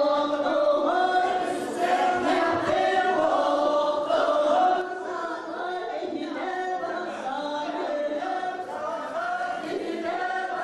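A group of voices singing together in a chant-like song, with held notes that step from one pitch to the next. It drops a little in loudness about five seconds in.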